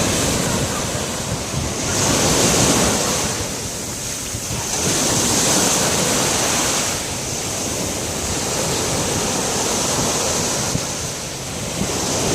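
Ocean waves breaking and washing up the shore, the surf swelling and easing in long surges a few seconds apart, with wind buffeting the microphone.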